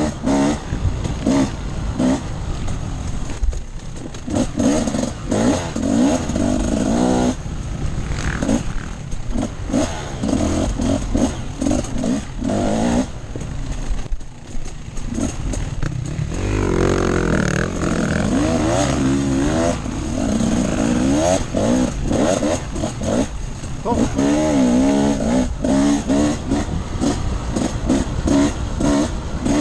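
Off-road motorcycle engine being ridden hard, its pitch rising and falling again and again as the throttle is opened and closed, over a rough, heavy low rumble.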